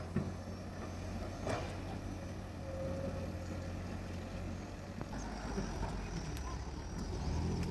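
Heavy diesel engine running steadily, with a few faint knocks over it; the engine grows a little louder near the end.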